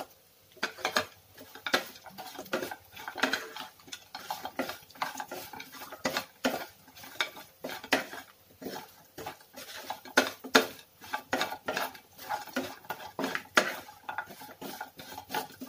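Wooden spatula stirring and tossing fried chicken pieces through masala in a non-stick kadai, with repeated irregular scrapes and knocks against the pan.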